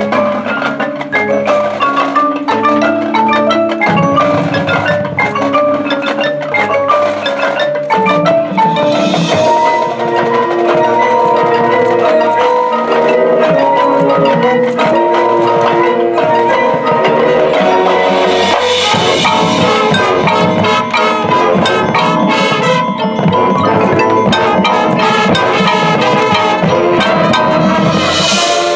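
Marching band front ensemble playing a fast mallet-percussion passage on marimbas, xylophones and glockenspiel, with drums striking along.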